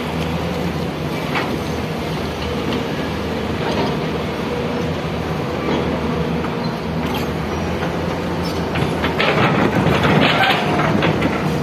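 Excavator's diesel engine running steadily, with scattered clanks and a louder stretch of scraping and clattering about nine seconds in, as from the machine working soil.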